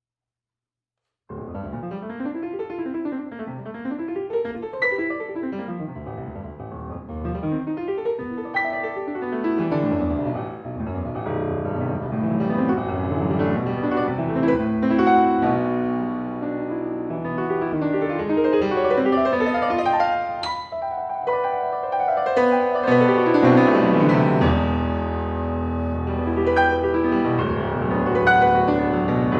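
Solo piano playing a fast toccata, coming in suddenly about a second in after silence. Rapid arpeggios sweep up and down in the lower register, then the texture thickens into dense chords over a held low bass note near the end.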